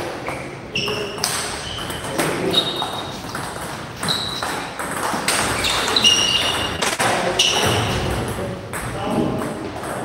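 Table tennis ball hits: the plastic ball clicking off rackets and the table in a rally, at uneven intervals of about half a second to a second, several hits with a short ringing ping.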